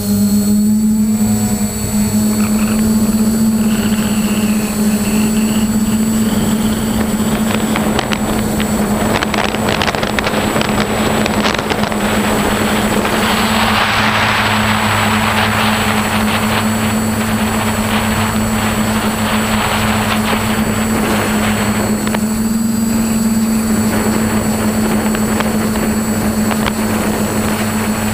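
Vintage snowmobile engine running steadily, a constant-pitch drone with a noisy mechanical rush that swells at times.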